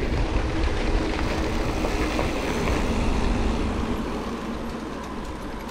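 Riding noise from a mountain bike on a trail: wind rumbling on the microphone with tyres rolling over the ground, steady and gradually getting quieter in the second half.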